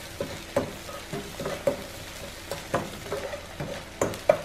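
Mashed salted egg yolk frying and foaming in melted butter in a nonstick pan, sizzling while a wooden spoon stirs and scrapes through it, with scattered light knocks of the utensils against the pan.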